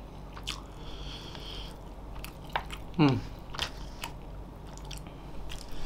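Close-miked eating sounds: chewing and wet mouth smacks on spicy meatballs and rice, with scattered sharp clicks. A short falling hum about three seconds in is the loudest moment.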